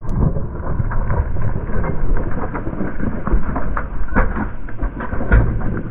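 Mountain bike climbing over loose rock, heard through a muffled bike-mounted camera: a constant low rumble with frequent clatters and knocks of tyres and frame against stone.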